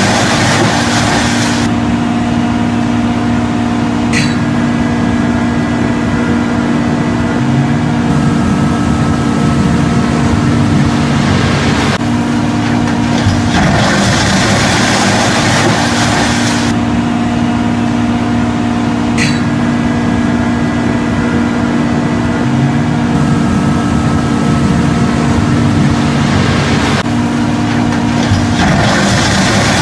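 Port crane's machinery running with a steady low hum, heard from inside the operator's cab. Twice its engine note rises as the hoist works, each time after a sharp click, and a rushing noise swells for a few seconds, twice.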